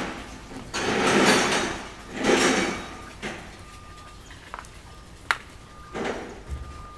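Metal tent pipes clattering and clanging as they are handled: three long crashing rattles in the first three seconds, a few sharp single clanks, then another rattle about six seconds in.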